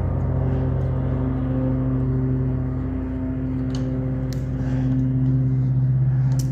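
Steady drone of a small engine on lawn-care equipment, running at a constant speed, with a few faint metallic clinks of hand tools about four seconds in.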